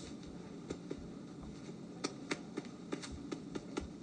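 Stylus tapping and ticking on a tablet screen during handwriting: irregular sharp clicks, a few a second.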